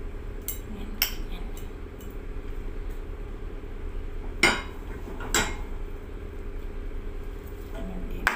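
Metal fork clinking and scraping against a ceramic plate as grilled eggplant is pressed flat in it, with a few sharp clinks, the loudest about four and a half seconds in.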